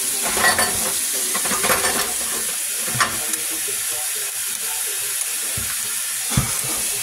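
Eggs frying in bacon grease in a cast iron skillet: a steady sizzle, with a few sharp ticks and pops, one about three seconds in and another near the end.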